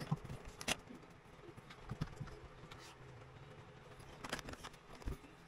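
Faint, scattered clicks and knocks from a laptop and its parts being handled on a desk, with a sharper click about a second in and another near the end.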